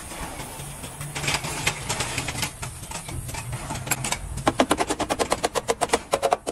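Gas torch flame hissing against the steel of a rocker panel's plug welds. About four and a half seconds in, a wire brush starts scrubbing the hot weld in rapid strokes, about ten a second, which are the loudest sound.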